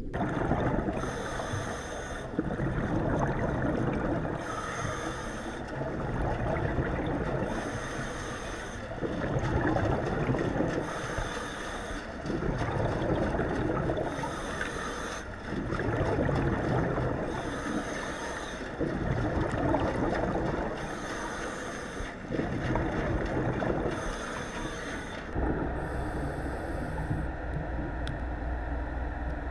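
A diver breathing underwater through a regulator: a hiss on each inhale, then a bubbling rumble on each exhale, about every three seconds. Near the end the breathing stops and a steady low hum with a fast pulse takes over.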